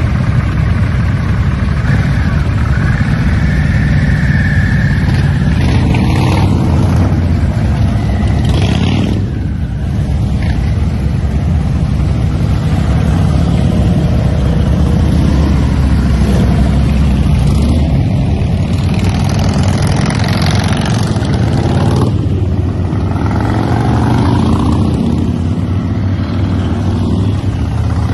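Several Harley-Davidson V-twin motorcycle engines running in a group, with bikes pulling away and riding past one after another, each passing engine rising and then falling away.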